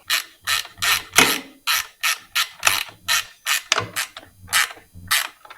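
Hand ratchet wrench tightening nylon-insert lock nuts onto stainless bolts, clicking in short, repeated strokes about two to three a second.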